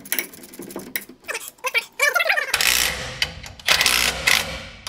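Small metallic clicks of tools working at a bracket bolt, then a cordless power tool runs in two bursts from about halfway in, driving the bolt home.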